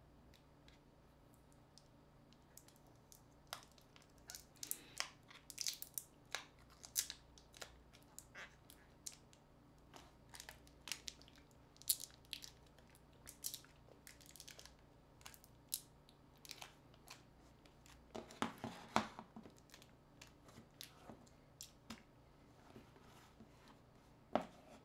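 Small sharp clicks, scrapes and crinkles of hand tools and small parts as a smartphone is taken apart by hand, with a denser scraping crinkle about three-quarters of the way through.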